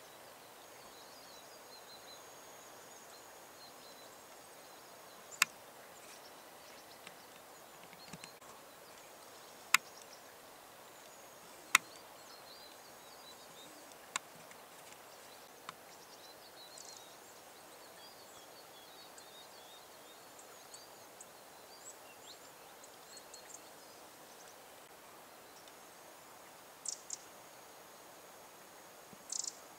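Quiet countryside ambience with faint, high chirps of small birds, broken by a few sharp clicks, the loudest about ten and twelve seconds in, with a few more near the end.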